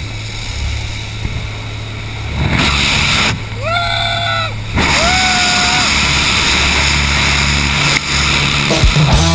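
Small plane's engine droning inside the cabin with rushing wind noise that grows louder about two and a half seconds in. Near the middle come two long, held, high-pitched shouts.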